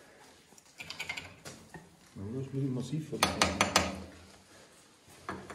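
Metal door latch and handle being worked by hand: scattered clicks, then a quick run of four or five sharp metallic clicks about three seconds in.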